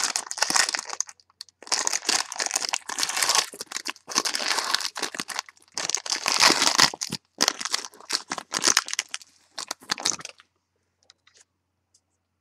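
Trading-card pack wrapper being torn open and crinkled, in irregular crackling bursts that stop about ten seconds in.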